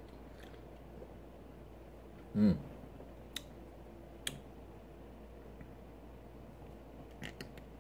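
Quiet room tone broken by a short, low vocal sound, falling in pitch, about two and a half seconds in, just after a drink from a soda can. A couple of sharp clicks follow a second or two later, and a few faint clicks come near the end.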